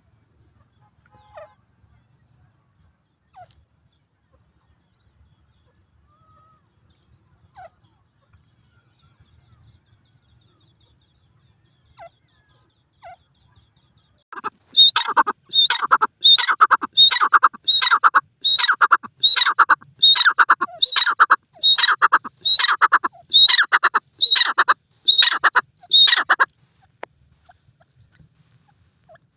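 Grey francolin calling: a loud run of about seventeen repeated, rattling notes, roughly one and a half a second, starting about halfway through and stopping a few seconds before the end. Before it only a few faint, short chirps are heard.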